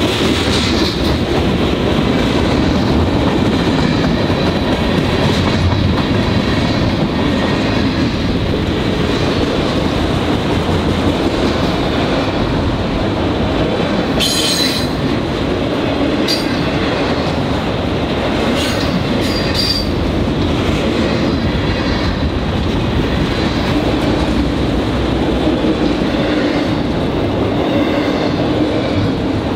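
Freight cars rolling past at close range: a steady heavy rumble of steel wheels on rail, with a thin high wheel squeal running through it. There is a short cluster of sharp metallic clicks about halfway through and a few more soon after.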